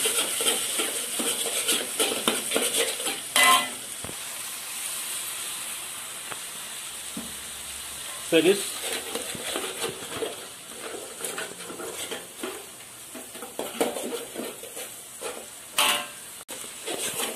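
Cabbage, chili paste and tomato sauce sizzling in a steel wok while a metal spatula stirs and scrapes the pan, with a few sharper, louder scrapes along the way. The sizzle is loudest in the first few seconds.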